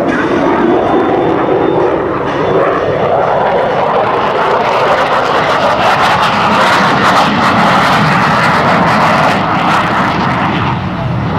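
F-16 Fighting Falcon jet flying past, its engine making a loud, rushing jet noise. The noise grows harsher and higher partway through as the jet comes closest, then eases off near the end.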